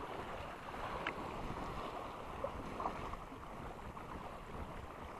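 Small waves washing up onto a sandy shore: a steady, faint hiss of lapping water.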